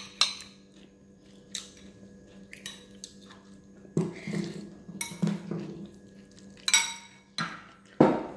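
Cutlery clinking and scraping against a ceramic bowl of fried noodles: a string of separate clinks, one ringing out about two-thirds of the way in and a sharper knock near the end, over a faint steady hum.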